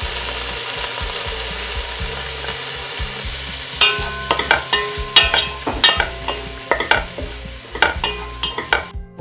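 Chopped onions sizzling in hot ghee in a pan, a steady hiss. From about four seconds in, a wooden spoon stirs them, with repeated quick scrapes and knocks against the pan.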